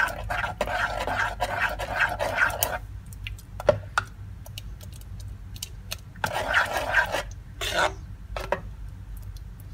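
A spoon stirring and scraping through thick rice-and-milk paayasam and grated carrot in an aluminium pressure cooker: rhythmic scraping at about three strokes a second for the first few seconds, then quieter, with a few sharp clicks of the spoon on the pot and two shorter bouts of scraping later on.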